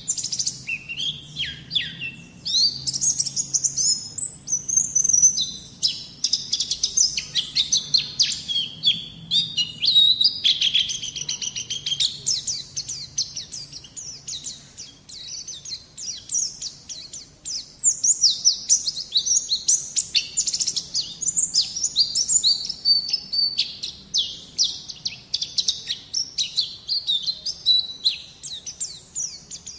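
White-eye (pleci) song: a continuous, rapid, high twittering warble of quick chirps. This is a masteran tutor recording, played to get young white-eyes to sing.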